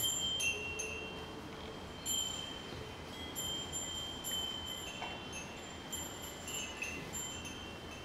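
Small metal bells on feeding water buffaloes' neck cords tinkling irregularly, with short clear ringing notes that start and fade every second or so.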